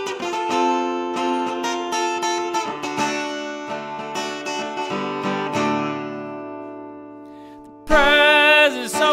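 Acoustic guitar instrumental break: picked and strummed notes ringing out, then dying away over the last couple of seconds before a man's singing voice comes in loudly near the end.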